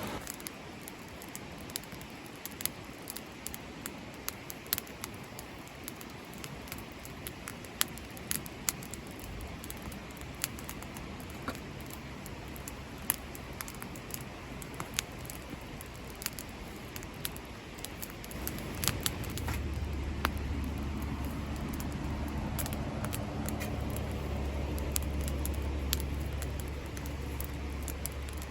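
Wood campfire crackling, with irregular sharp pops and snaps. A low steady hum comes in about a third of the way through and grows louder in the second half.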